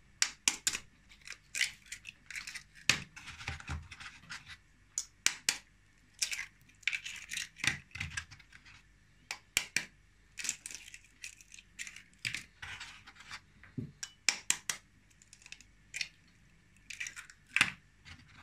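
Raw eggs cracked one after another against the edge of a metal fork: clusters of sharp taps and shell cracks, with scraping of shell on the fork.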